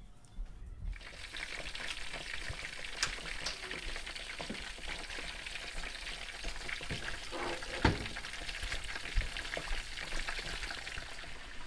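Breaded chicken pieces frying in bubbling oil in a deep pan: a steady sizzle full of fine crackles and the odd sharper pop, coming in about a second in.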